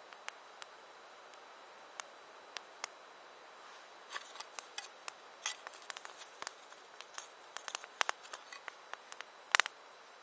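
Campfire crackling: scattered sharp pops and snaps of burning wood over a faint hiss, coming more thickly from about four seconds in.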